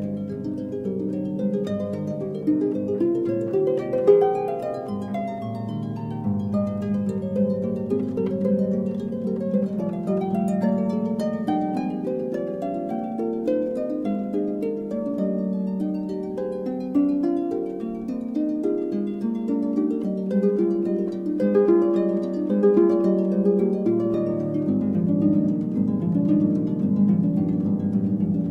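Solo harp music: a flowing run of plucked notes and chords at a steady, moderate level.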